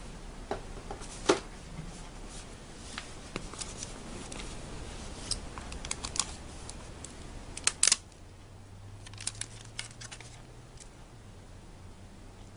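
Hands unwrapping an iPad 2 from its packaging: scattered small clicks and crinkles of plastic, with a louder crackle about eight seconds in.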